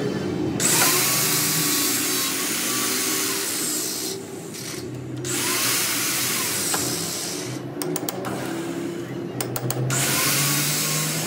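Metal lathe running with its three-jaw chuck and steel workpiece spinning: a steady machine noise that drops away for about a second a little before the middle and turns choppy near the end.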